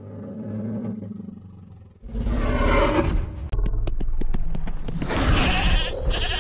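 Tyrannosaurus rex roar sound effect: a low growl for about two seconds, then loud roaring, with a run of sharp clicks in the middle.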